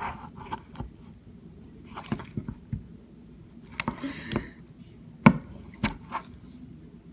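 Scissors working at a hard plastic fidget piece, giving scattered sharp clicks and snips, the loudest two about five and six seconds in, with a brief rustle of handling around four seconds in.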